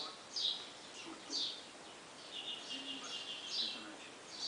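Small birds chirping: short, sharp chirps about once a second, with a fast buzzing trill through the middle.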